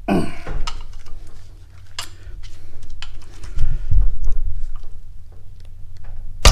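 A hand tool working a nut loose on a Harley-Davidson Shovelhead engine: irregular metal clicks, clinks and knocks of the tool on the fastener, over a steady low hum.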